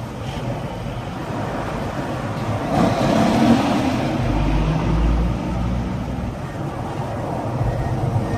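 Freeway traffic heard from a moving car, with a big rig's engine and tyres running alongside as a steady low hum. Road noise swells about three seconds in as a vehicle passes close by.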